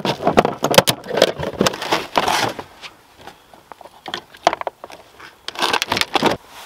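Fishing gear being handled in a plastic ice-fishing sled: irregular plastic knocks, rattles and scrapes, busiest in the first two seconds and again near the end.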